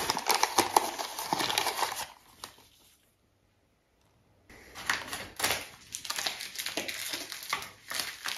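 Food packaging crinkling and rustling as ingredient packets are handled and poured, with irregular crackles; the sound drops to complete silence for about a second and a half in the middle.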